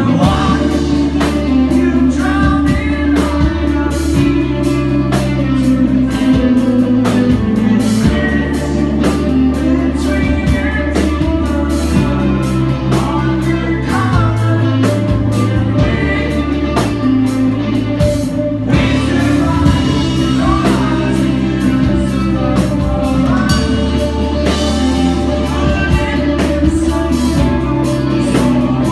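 Rock band playing live with a singer's voice over drums, guitars and sustained bass notes, with a brief break in the cymbals about two-thirds of the way through.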